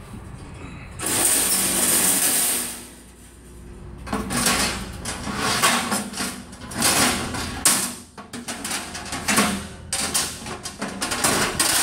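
Metal cooking grates being set into an offset smoker's steel cook chamber: a scrape of about two seconds as a grate slides across the steel, then a run of clanks and rattles as the grates drop into place.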